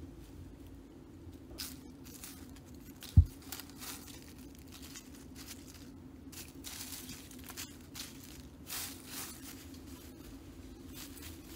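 Dry fallen leaves and twigs crackling and rustling in short bursts as they are handled and laid around a wooden stake on the forest floor, with one dull thud about three seconds in.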